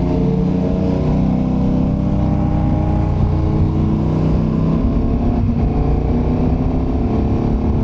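KTM 1290 Super Adventure's 1301 cc V-twin engine running under way, heard from the rider's seat along with wind and road noise. The engine note holds fairly steady, with a brief change in its pitch about five and a half seconds in.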